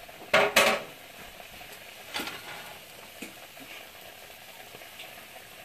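Minced garlic sizzling faintly in hot olive oil in a frying pan. Two sharp knocks come about half a second in, and another about two seconds in.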